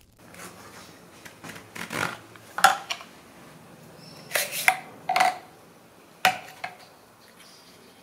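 Hard plastic and stone clacking and scraping as a sharpening oilstone is slid out of its plastic case and set down on a workbench: a handful of sharp knocks, some with a short ring, over light rubbing and handling noise.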